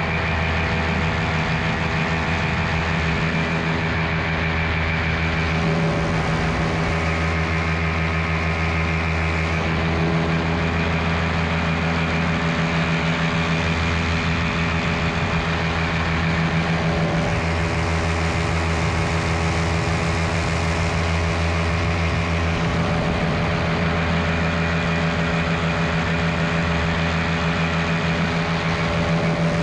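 Miniplane Top 80 paramotor, a small single-cylinder two-stroke engine turning a propeller, running steadily at cruise power, its pitch shifting slightly a few times.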